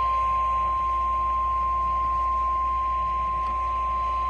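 NOAA Weather Radio's 1050 Hz warning alarm tone: one steady, unbroken beep at an even level, the signal that a new weather warning is about to be broadcast.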